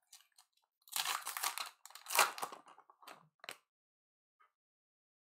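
A trading-card pack's wrapper torn open and crinkled by hand: two loud tearing rips about a second in, then a few short, softer crackles.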